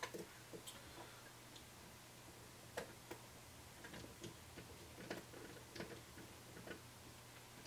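Faint, irregular small metal clicks and taps from a precision screwdriver and a coil rod working a coil into place on a rebuildable dripping atomizer's deck.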